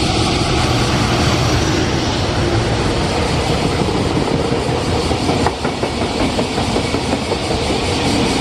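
Freight train hauled by an EF210 electric locomotive passing at speed, a loud steady rumble of wheels on the rails with clatter over the rail joints. The sound turns choppier about halfway through.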